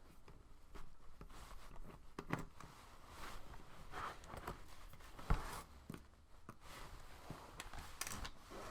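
Faint, irregular clicks, taps and scrapes of a small Torx screwdriver and metal laptop parts being handled during hinge screw work, with one sharper click a little past halfway.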